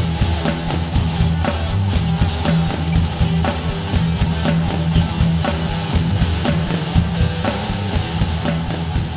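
Rock music: electric guitar over a steady drum beat.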